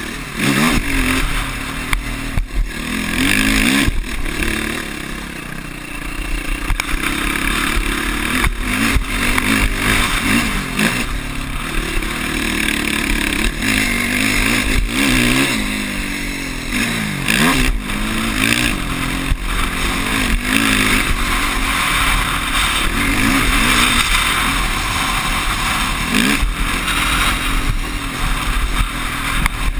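Quad (ATV) engine revving up and falling off again and again as it is ridden hard over a dirt track, with rushing wind noise on a helmet-mounted camera and knocks as the machine hits bumps.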